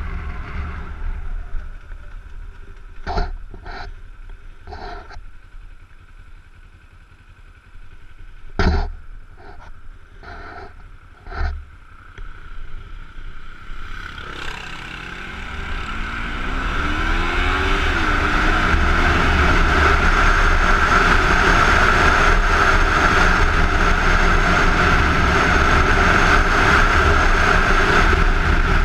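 Kawasaki Ninja 250's parallel-twin engine heard from the rider's helmet: first running low and quiet with several sharp clicks, then about halfway through revving up as the bike pulls away, followed by a loud steady mix of engine and wind noise at riding speed.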